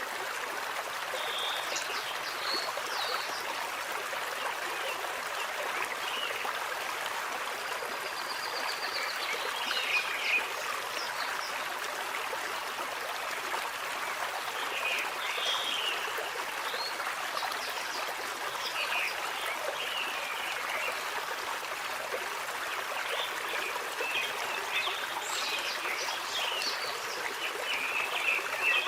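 A stream running steadily, with birds chirping here and there over it, the chirps coming more often near the end.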